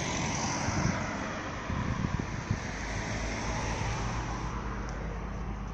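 Road traffic noise: a steady rush of passing cars, loudest at the start and easing off, with a few low thumps about two seconds in.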